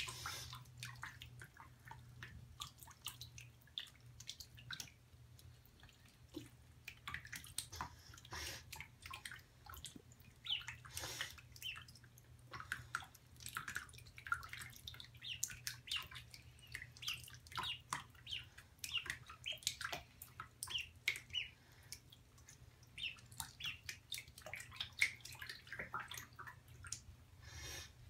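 Days-old ducklings peeping, short high peeps that are sparse at first and come thick and fast from about a third of the way in. Small splashes, drips and ticks of water come from them paddling on a wet towel in shallow bathwater.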